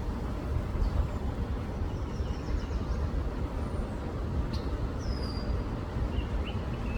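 Steady low outdoor rumble with scattered small bird chirps over it, including a short run of notes and a falling whistle about five seconds in.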